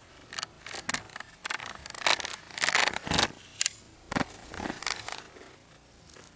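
An irregular run of sharp scrapes, snaps and rustles, about a dozen in four seconds and loudest near the middle, over a faint steady high whine.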